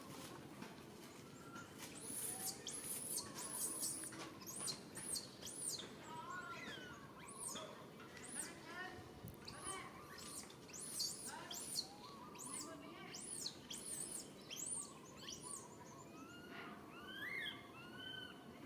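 Many short, high-pitched chirping calls that rise and fall, about two a second, mixed with lower, squeakier rising calls.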